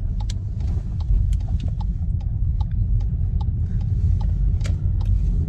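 Low, steady road rumble inside a moving car's cabin, with scattered light clicks and rattles.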